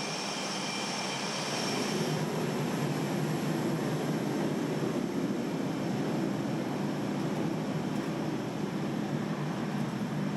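Steady running noise of jet-aircraft machinery: a high whine that stops about two seconds in, then a louder low, even rumble.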